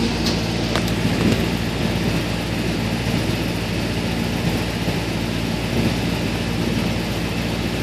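Mister Softee ice cream truck's engine idling, a steady low hum.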